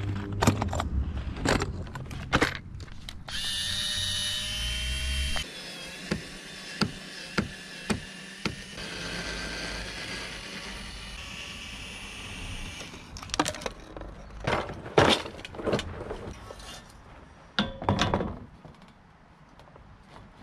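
Parkside cordless drill-driver backing the licence-plate screws out of a car's front bumper: a steady whining run of about two seconds, then a longer lower run with regular ticks. Around it come snapping clicks from the plastic tool case being opened, with knocks and clatter from the screws and plate.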